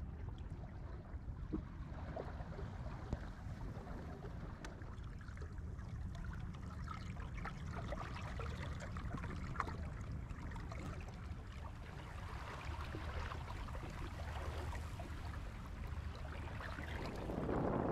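Water lapping and trickling against the hull of a small wooden sailing boat under way, over a low rumble of wind on the microphone. Near the end a wind gust buffets the microphone and grows louder.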